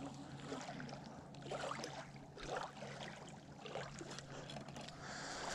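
Small waves lapping softly at the lake shore in irregular splashes while a spinning reel is wound in.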